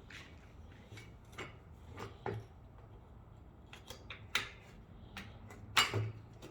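Plastic end cap being handled and pushed onto the end of a roof crossbar: a scatter of sharp plastic clicks and taps, the loudest near the end.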